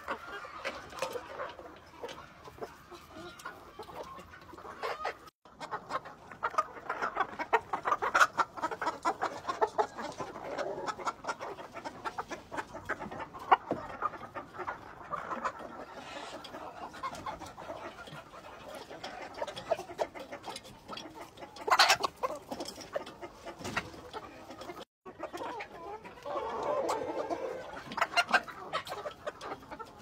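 A flock of chickens clucking as they feed, with many quick pecking taps as they peck azolla from a metal trough feeder.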